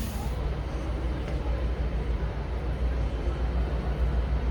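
Locomotive idling: a steady low rumble with no distinct knocks or changes.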